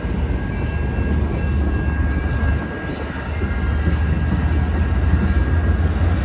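Bilevel passenger cars of a departing Amtrak San Joaquin train rolling past at close range. Their wheels make a steady low rumble on the rails, with a faint steady high tone over it and a brief dip in loudness about halfway through.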